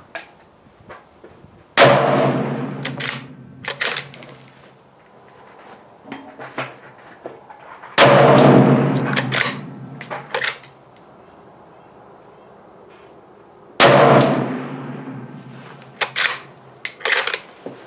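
Three rifle shots from a Ruger American Ranch bolt-action rifle in 7.62x39, about six seconds apart, each followed by a long echoing tail. After each shot come a few sharp metallic clicks of the bolt being worked to chamber the next round.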